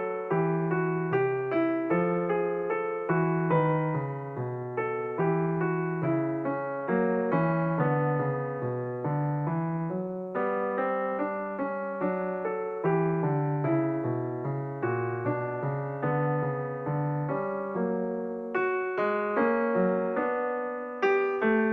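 Background piano music: a melody over bass notes, with notes struck at a steady, unhurried pace.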